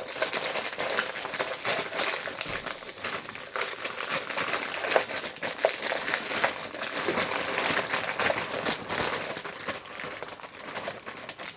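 Continuous crinkling and rustling of packaging being handled while sewing machine foot pedal controllers are packed, with many small clicks and knocks mixed in.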